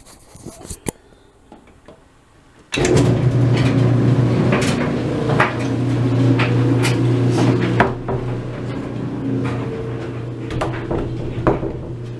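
Electric clothes dryer switched on: a few clicks as the control dial is set, then about three seconds in the motor starts and the drum runs with a steady low hum and irregular knocks of clothes tumbling inside. It gets somewhat quieter from about eight seconds in.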